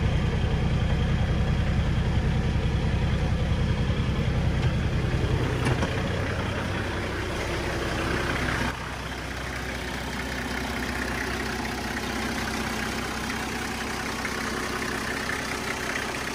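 Toyota 1HZ 4.2-litre inline-six diesel idling just after a cold start that followed glow-plug preheating. It runs steadily, getting quieter about six seconds in and again near nine seconds.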